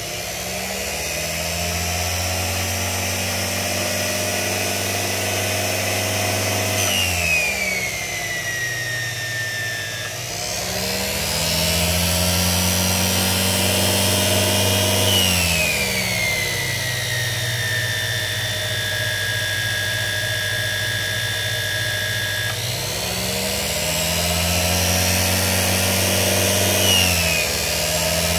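Electric drive motor of a dynamo test bench spinning a Jawa/ČZ motorcycle dynamo: a steady whine over a low hum. It slows down three times, its pitch falling, and speeds back up twice, holding steady in between, as the dynamo is run at changing speeds to test the charging regulator.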